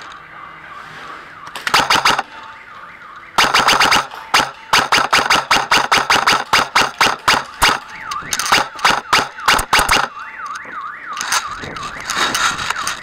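Airsoft guns firing: a short burst about two seconds in, then a long run of sharp cracks, several a second, lasting about six seconds. Near the end a warbling, siren-like tone rises and falls a few times.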